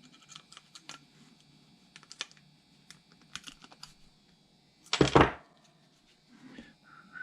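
Light clicks and taps of small metal and plastic garden hose nozzle parts being handled at a workbench, with one loud brief clatter about five seconds in.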